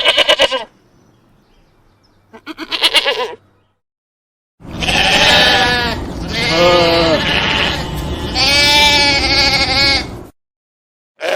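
Domestic sheep bleating: a quavering bleat right at the start and another about two and a half seconds in. From about four and a half seconds, three longer bleats come one after another over a loud low rumble of background noise.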